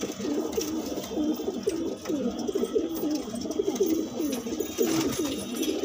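Several domestic pigeons cooing at once, their low coos overlapping without a break.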